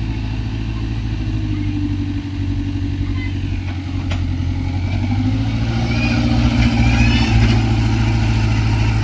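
Sumitomo hydraulic excavator's diesel engine running steadily, picking up and growing louder about halfway through as it works, with a sharp click a few seconds in and some high-pitched squeaks near the end.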